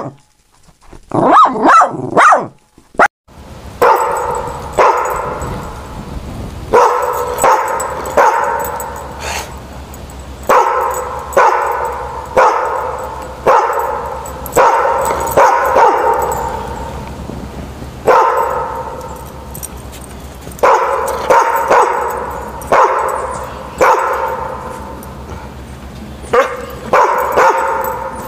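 A dog barking over and over, roughly one bark a second, in runs with short pauses.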